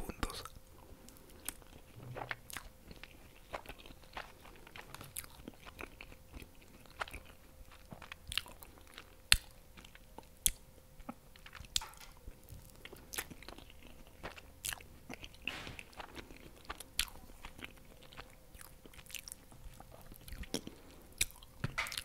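Close-miked mouth sounds of eating soft, milk-soaked tres leches cake: wet chewing, lip smacks and sharp tongue clicks, coming irregularly a second or so apart.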